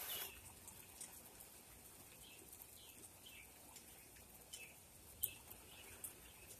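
Faint scattered bird chirps, short falling calls about once a second, over near silence.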